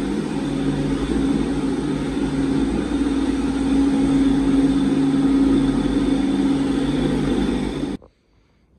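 Faresin feed mixer wagon running steadily, with a low rumble and a steady droning tone. The sound cuts off abruptly about eight seconds in.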